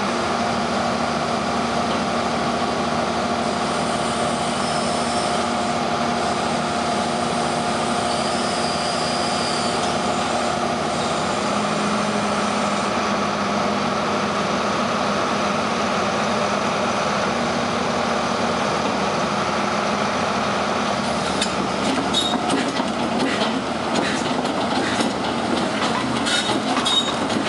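Doosan DX300 excavator's diesel engine running steadily under hydraulic load, with a steady whine, as the material-handling boom and orange-peel grapple move. About three quarters of the way in, a run of metallic clanks and knocks joins in.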